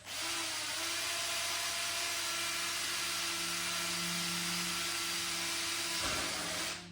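Electric drill running steadily as it bores through car-body sheet steel, a hiss-heavy whir with a faint steady whine; it starts abruptly and stops just before the end, about seven seconds later.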